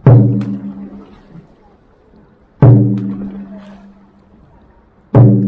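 A large dragon boat drum struck three times at an even, slow pace, about two and a half seconds apart. Each beat is deep and rings on, dying away before the next.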